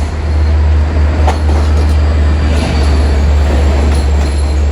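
Long Island Rail Road diesel push-pull train rolling into the station: a steady heavy rumble with rail and wheel noise, a brief sharp clank about a second in, and a faint wheel squeal.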